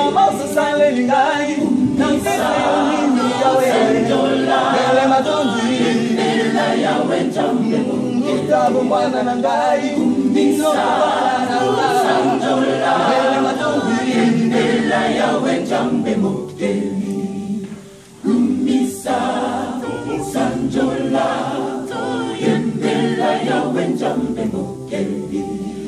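Mixed choir of men and women singing a cappella in parts, unaccompanied. The singing breaks off briefly about eighteen seconds in, then resumes.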